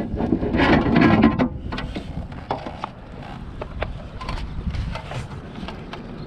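Scattered clicks and knocks from a bass being handled and laid on a fish measuring board, with a louder, denser stretch of handling noise in the first second and a half.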